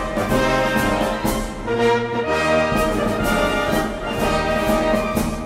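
Orchestral background music led by brass, with held chords that change every second or so over a steady beat.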